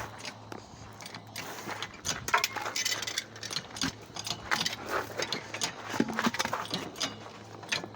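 Irregular metallic clicking and clanking from mechanical work on a car that is being jacked up.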